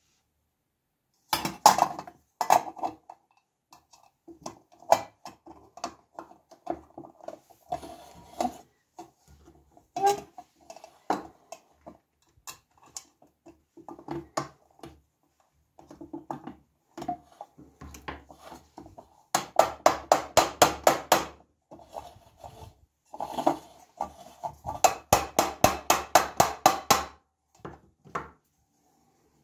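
Small metal rivet pins clicking and knocking against the engraved metal caviar dish as they are fitted into its hinges. There are two runs of rapid light taps, about six a second, about two-thirds of the way in and again near the end.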